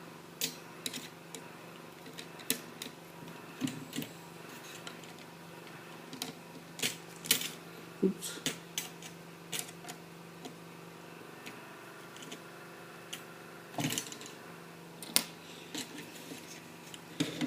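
Irregular clicks and small knocks of a screwdriver and plastic printer casing being worked as the last screw is taken out and a panel is freed.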